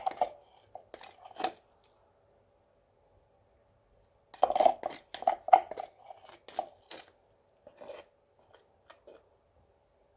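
Short clicking and scraping strokes in two quick bursts, a plastic mixing cup being scraped and tapped out as the leftover resin is poured, then a few scattered clicks, over a faint steady hum.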